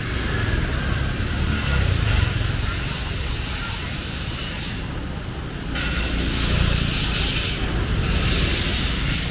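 Street traffic noise: a steady rumble of passing vehicles with a hiss over it, louder again about six seconds in.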